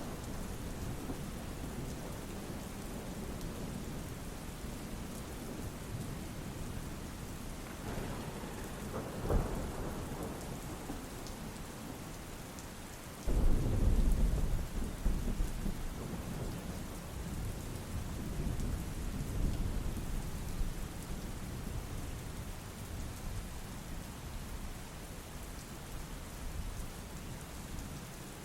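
Steady rain falling, with thunder. There is a short crack about a third of the way in, then a loud clap of thunder about halfway through that rumbles away over several seconds.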